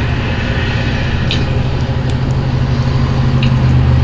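Diesel engine of a 2012 International WorkStar 7600 truck idling, a steady low drone that swells slightly near the end.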